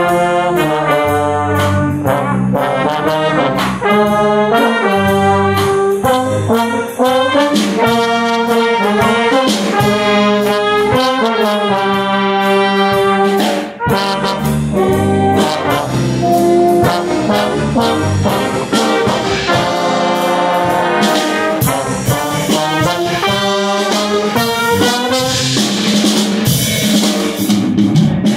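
Brass ensemble playing a tune, heard from inside the trombone section with the trombone close by and trumpets alongside. The notes move in short phrases, punctuated by sharp accented hits throughout.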